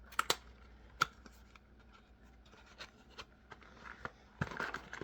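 A knife's retail box being opened and its contents handled: a few sharp clicks and taps near the start, soft rubbing, then busier rustling of packaging near the end.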